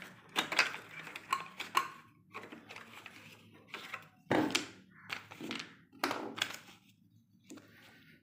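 Plastic clicks and knocks of the printer compartment on a digital lensometer being opened and handled, about a dozen separate short knocks with one louder thunk about four seconds in.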